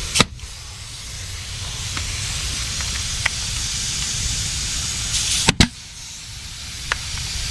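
Pneumatic stapler firing staples into RV trim: two sharp shots, one just after the start and a louder one about five and a half seconds in, the second with a short puff of air just before it. A steady hiss runs underneath.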